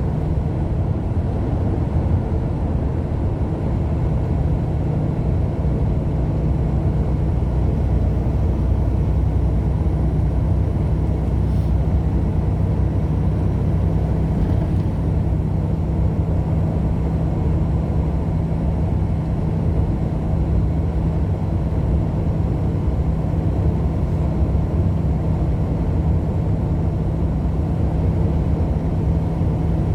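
A car driving steadily, with continuous engine and road noise and a steady low hum.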